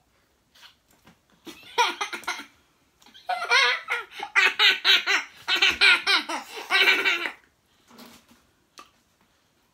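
High-pitched laughter from a woman and young children: a short burst about a second and a half in, then a longer run of rapid, pulsing laughs that stops about seven seconds in, followed by a few small clicks.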